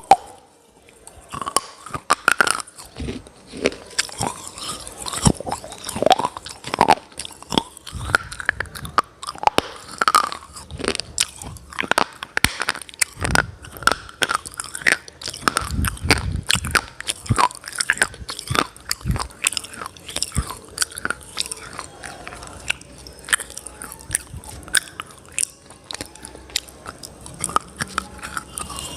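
A person biting and chewing hard, chalky pieces such as slate pencil or baked clay: many sharp crunches in quick succession, with grinding chews between them.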